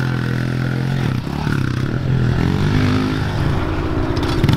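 Small pit bike engine revving under way on a dirt track, its note falling and rising again several times as the rider works the throttle.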